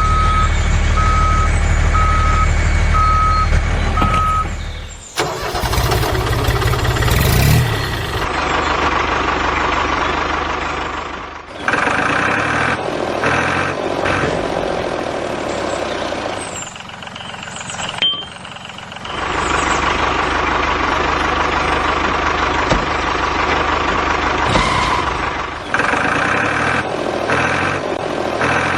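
Vehicle engine running, with a reversing beeper sounding about once a second for the first four seconds. The engine sound changes abruptly several times along the way.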